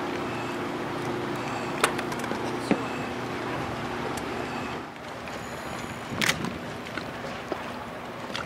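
A motorboat engine running steadily under a haze of wind and water noise, with a few sharp knocks; the engine hum drops away about five seconds in, and a louder rattle follows.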